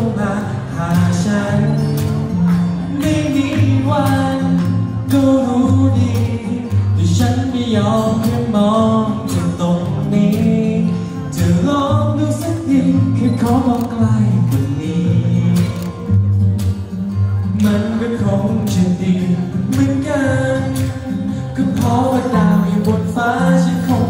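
A man singing a song into a microphone over a backing track with a bass line and a steady beat.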